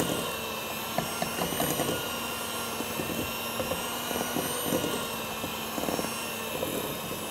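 Electric hand mixer running steadily, its beaters whirring through cake batter in a glass bowl as flour is added, with a few light knocks.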